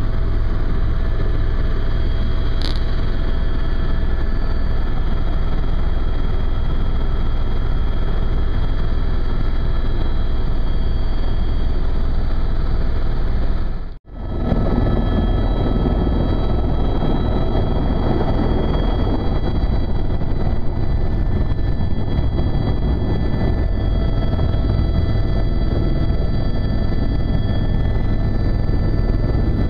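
Tour helicopter's engine and rotor running steadily, heard from inside the cabin: a loud, even rumble with a steady high whine on top. It drops out for a moment halfway through and picks up again unchanged.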